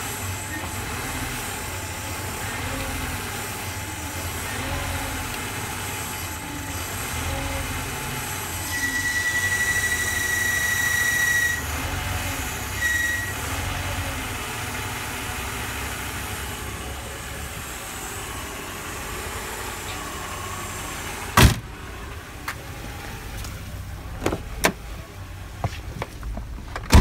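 Mercedes-Benz engine idling with the noise the owner puts down to the power-steering/self-levelling-suspension pump, still there after a new genuine Mercedes belt tensioner: a steady hum with a faint rhythmic warble, and a high steady whine for a couple of seconds about a third of the way in. About two-thirds of the way in comes one loud knock, then a few lighter clicks.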